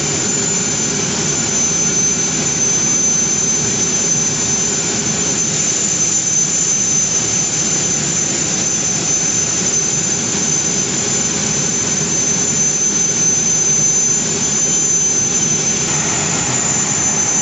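Jet airliner's turbofan engines running steadily as the Gulf Air Boeing 787 taxis past at close range: a steady rush with a high whine over it.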